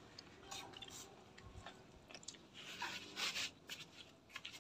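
A person biting and chewing a crisp raw vegetable: scattered small crunches and mouth clicks, with a burst of louder crunching about three seconds in.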